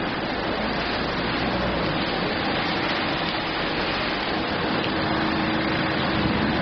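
Heavy rain falling on wet pavement and into a puddle: a steady, even hiss of many drops.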